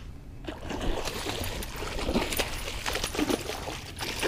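A hooked bass thrashing and splashing at the water's surface close to the bank as it is reeled in, in irregular splashes starting about half a second in.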